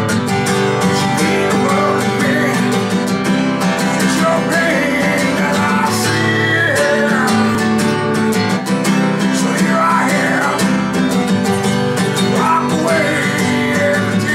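Steel-string acoustic guitar strummed in an acoustic blues style, with a man singing over it in several phrases.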